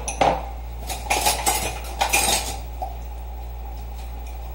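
Cutlery and dishes clinking against each other as they are washed by hand in a kitchen sink. Quick, irregular clinks come in small clusters through the first three seconds, then stop, leaving a steady low hum.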